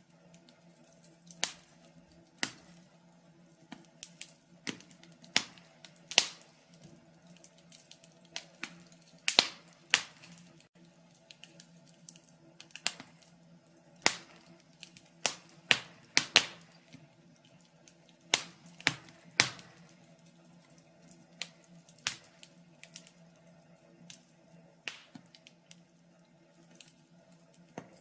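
Wood fire crackling: irregular sharp pops and snaps, sometimes several close together and sometimes a second or two apart, over a faint steady low hum.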